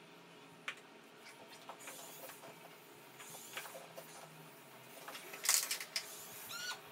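Handling of painting tools: scattered light clicks and taps of a flat painting tool against a plastic paint tray, a louder brief rush of noise about five and a half seconds in, and a short squeak near the end.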